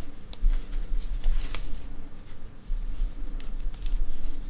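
Crochet hook working acrylic yarn: soft rustling and scratching as the yarn is wrapped and pulled through stitches, with a few light clicks and taps of the hook, the sharpest about one and a half seconds in.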